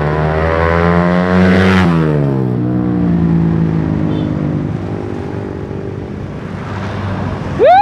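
Suzuki Satria F150 injection's single-cylinder engine through an R9 Mugello racing exhaust, revving up as the motorcycle rides past: the pitch climbs, drops sharply as it passes about two seconds in, then fades away. A loud rising electronic beep cuts in at the very end.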